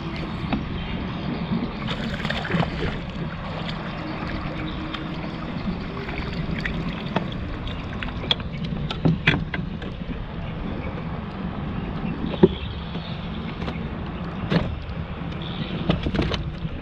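Kayak on open water: a steady low rumble of wind and water against the hull, with scattered sharp clicks and knocks from handling on board, the loudest about twelve seconds in.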